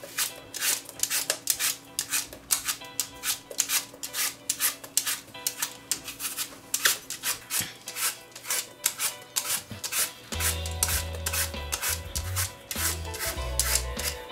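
Metal-bladed Y-peeler scraping the skin off an apple in quick repeated strokes, about three or four a second. Background music with a low bass line comes in about ten seconds in.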